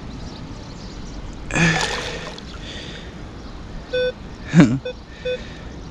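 Water sloshing as a long-handled sand scoop is dipped and emptied in shallow lake water, with a loud slosh about halfway through. From about four seconds in the metal detector gives several short beeps at one pitch.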